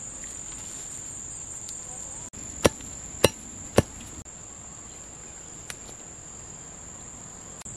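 Three sharp knocks about half a second apart: a forked wooden stake being pounded into the soil. Under them runs the steady high drone of insects.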